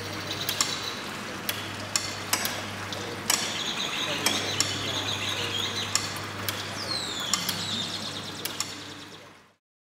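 Mechanism of a moving nativity scene running: irregular sharp clicks and knocks over a steady low hum, with a short falling squeak about seven seconds in. The sound fades out near the end.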